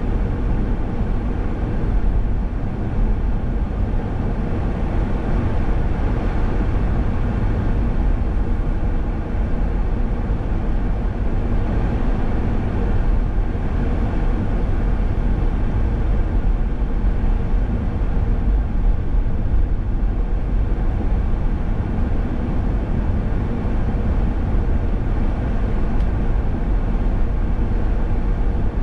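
Steady road noise from a car driving at speed: a continuous low rumble of engine and tyres, even throughout.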